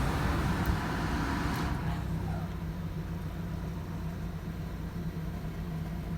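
Hyundai Santa Fe engine idling steadily, running smoothly with no misfire after a new ECM, ignition coils and spark plugs. A broad hiss over it fades out about two seconds in.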